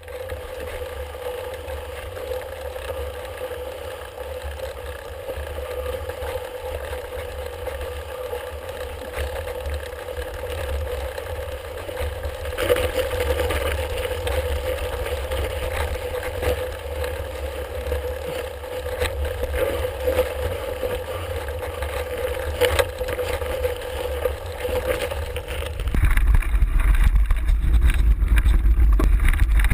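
Off-road vehicle engine running at a steady pitch, with wind rumbling on a handlebar-mounted action camera and occasional knocks from bumps in the trail. About 26 seconds in, the engine tone drops away and a louder wind rumble takes over.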